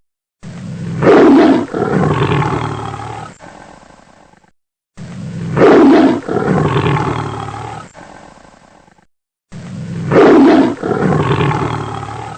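A tiger roaring three times, the same recorded roar repeated about every four and a half seconds: each swells to a loud peak within its first second, rises again briefly, then fades away over a few seconds.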